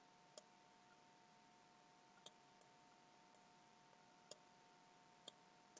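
Near silence: a faint steady hum with two close tones, and about five sparse, faint clicks at the computer, a second or two apart.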